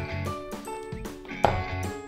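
Background music with notes over a steady low beat. A short click comes about one and a half seconds in.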